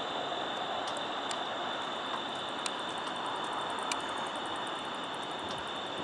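Angle-wing katydid (Microcentrum) ticking: a rapid run of faint, high clicks starts about two and a half seconds in and stops shortly before the end. A few louder single clicks come before it. Underneath are a constant high steady tone and a broad background rush.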